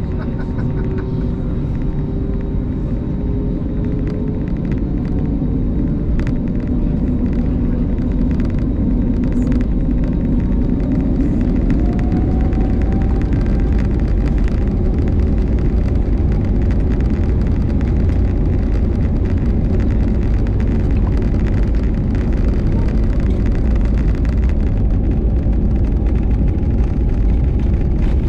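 Airbus A220's twin turbofan engines heard from inside the cabin, spooling up with a slowly rising whine over the first dozen seconds, then running steadily at high thrust over a deep rumble from the wheels on the runway as the takeoff roll begins.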